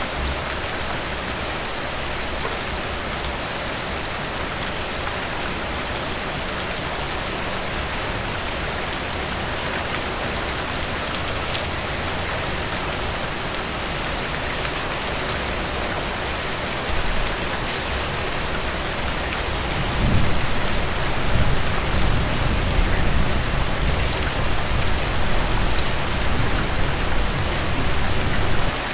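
Heavy rain falling steadily, an even hiss of drops. About two-thirds of the way in, a low rumble of thunder comes in under the rain and carries on to near the end.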